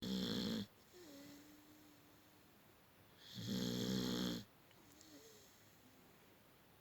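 A beagle snoring in its sleep: loud, rattling snores about three and a half seconds apart, one fading just after the start and another about three seconds in that lasts about a second, with a faint thin whistle-like tone in the quiet breaths between.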